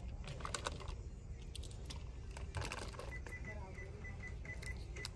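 Quick clicks and taps like keys being pressed, then, a little past halfway, a run of about eight short, high electronic beeps, with faint voices underneath.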